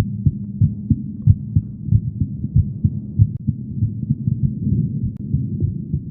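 A woman's heart beating, heard as a steady run of low, muffled thumps at about one and a half beats a second.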